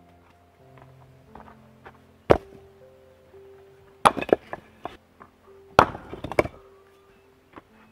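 Stones thrown onto a heap of rocks, each landing with a sharp knock: once about two seconds in, then twice more about two seconds apart, the last two clattering briefly as they settle. Soft music with held notes plays underneath.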